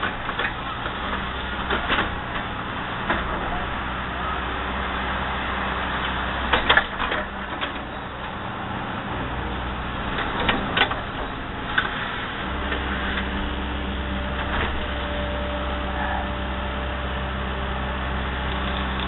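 Excavator's diesel engine running with a steady drone that rises and falls in level as it works, under scattered sharp knocks and clanks, the loudest about six and a half seconds in.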